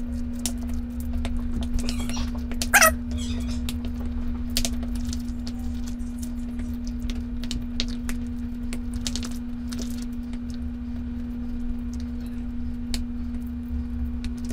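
A spoon stirring and scraping thick, creamy dip in a bowl, with scattered soft clicks against the bowl over a steady low hum. A brief high-pitched sound cuts in about three seconds in.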